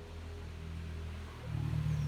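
An engine running steadily with a low hum, getting louder and higher about one and a half seconds in.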